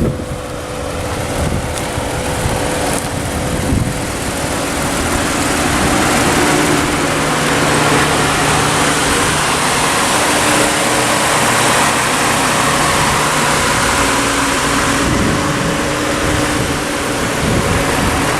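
A car engine running steadily, with a strong hiss over it and a few steady low tones underneath that grow somewhat louder about a quarter of the way in.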